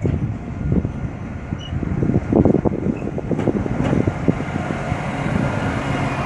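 Class 711 diesel multiple unit rumbling at the platform, a loud uneven low rumble broken by short low thumps, with faint steady squeal-like tones coming in near the end.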